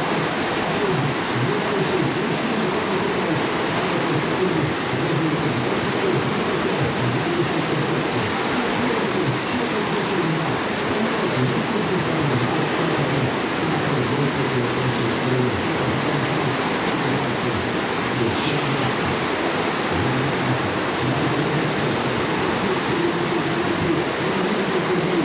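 Steady rushing of whitewater rapids in a canoe slalom channel.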